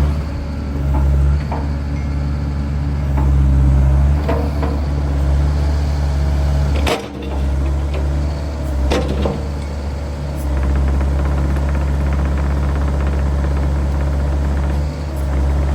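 Bobcat E80 midsize excavator's diesel engine running under working load, its loudness rising and falling as the hydraulics are worked. Two sharp knocks come about two seconds apart midway through.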